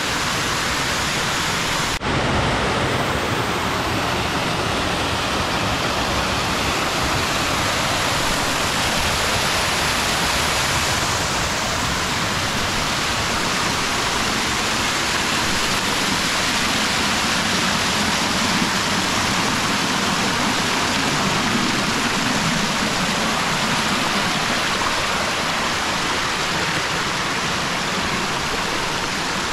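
Water of a small waterfall running steadily, with a brief break about two seconds in.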